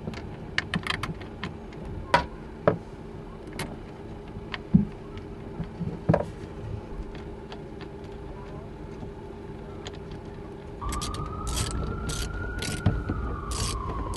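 Metal tools and cable lugs clicking and knocking against a busbar's terminal studs while ground wires are fastened. About eleven seconds in, a steadier mechanical sound starts, with a whining tone that rises and then falls and a run of evenly spaced clicks.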